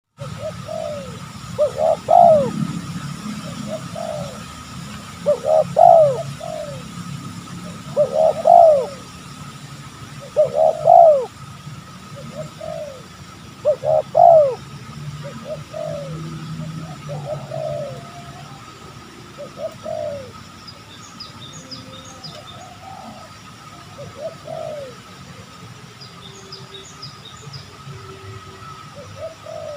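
Spotted doves cooing: loud repeated coo phrases about every three seconds for the first half, then fainter, more scattered coos. A steady thin high tone runs underneath, and near the end a small bird chirps faintly twice.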